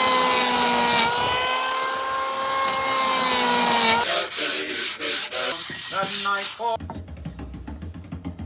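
Electric woodworking power tool cutting pine boards to square them up, a steady motor whine over the hiss of the cut for about four seconds. Shorter, choppier bursts follow, and background music comes in near the end.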